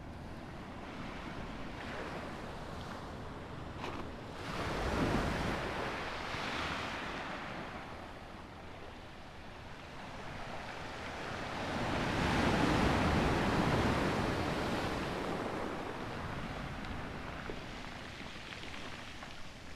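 Ocean surf breaking and washing up a pebble-and-cobble beach, with two bigger waves surging in about five and twelve seconds in, the second the loudest.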